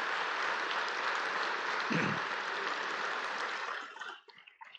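Congregation applauding steadily, breaking up into a few scattered last claps near the end.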